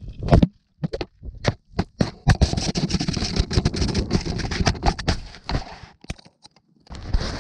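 A skier falling and tumbling down an icy, frozen slope: a run of separate knocks as body, skis and camera strike the hard snow, then a long scraping slide through crusted snow that stops about six seconds in.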